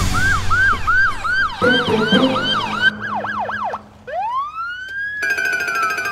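Electronic police siren in yelp mode, quick rising-and-falling sweeps about three a second that speed up after about three seconds. After a brief dip it switches to a wail: one long rising tone that peaks and then slowly falls. A fast, high rattling sound joins when the wail peaks.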